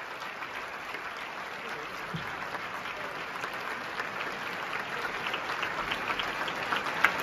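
Large theatre audience applauding at a curtain call, with sharp individual claps close by; the applause swells toward the end.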